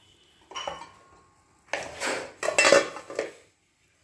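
Aluminium kitchen vessels clattering: a perforated aluminium strainer and bowl knocked together and set down as they are handled. A short knock with a brief ring about half a second in, then a louder run of clattering knocks.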